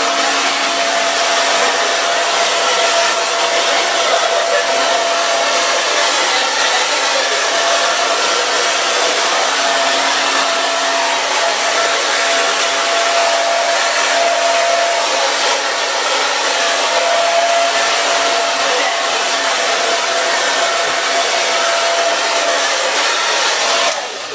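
Handheld hair dryer blowing steadily while drying hair: a loud rush of air with a steady motor whine in it. It cuts off near the end.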